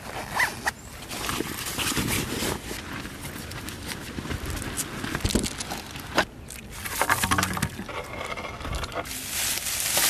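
Camping gear being packed by hand: nylon bags and a dry bag rustling and crinkling, with scattered small clicks and knocks as items go into the packs.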